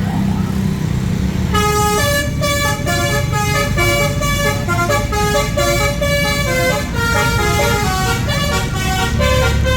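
A bus engine running, then about one and a half seconds in a tour bus's telolet 'basuri' musical horn starts playing a quick tune of stepped notes over the engine, running on to the end.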